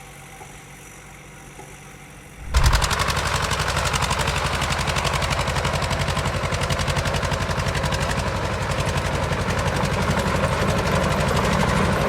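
An engine starts suddenly about two and a half seconds in and runs with a fast, even knocking beat.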